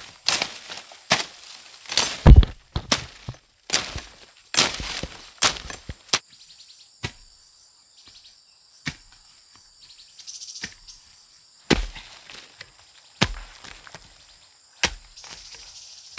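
A run of irregular sharp knocks and cracks, like strokes on wood and brush, crowded together for the first few seconds and then coming one at a time every second or two. A steady high insect drone runs under them from about six seconds in.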